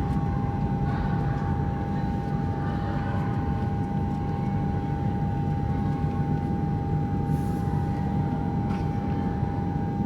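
Steady low mechanical rumble with a constant high-pitched hum running through it, unchanging throughout.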